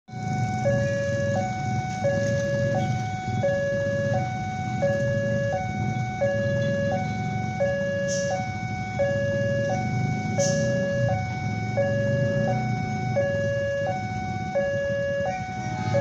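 Two-tone hi-lo siren alternating evenly between a higher and a lower note, each held about 0.7 s, over a low rumble. Two brief sharp high sounds cut in about halfway through.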